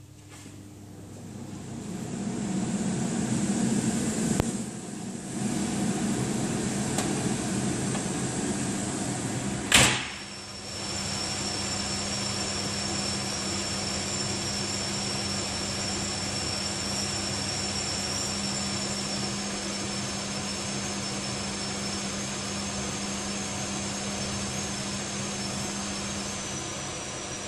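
Chimney cooker hood's internal extractor fan, rated at 950 m³/h, spinning up over a couple of seconds and running at high power with a steady rush of air. There is a sharp clack about ten seconds in. After it the fan runs on with a steady low hum and a thin high whine.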